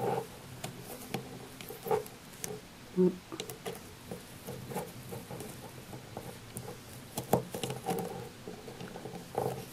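Scattered small clicks and taps of a metal knitting hook against the plastic pegs of a round knitting loom, with soft rustling of yarn, as loops are lifted over the pegs.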